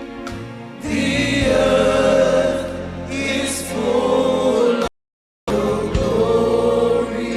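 Gospel worship music: voices singing over a steady low accompaniment. It cuts out to complete silence for about half a second, around five seconds in, then resumes.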